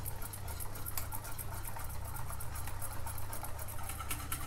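Wire whisk beating thick millet-and-yogurt batter in a bowl, a quick stream of soft irregular wet scrapes and ticks as the wires go round, over a low steady hum.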